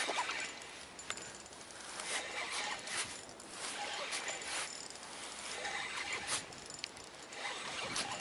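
Spinning reel being cranked in short, uneven spells while a hooked pike is played in on the line.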